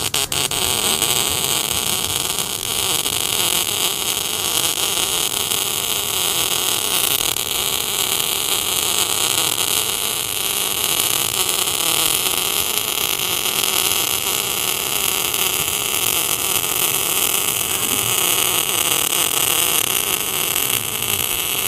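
CO2-shielded MIG welding arc, solid ER70S-6 wire, running one continuous bead pushed forehand: a steady sizzling hiss, with a few sharp ticks as the arc strikes at the start.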